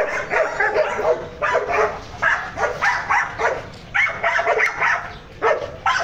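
A dog barking repeatedly, in quick runs of several barks with short pauses between them.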